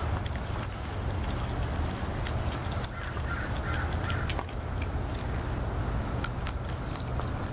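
Outdoor background with a steady low rumble, scattered faint clicks and a few short, high chirps.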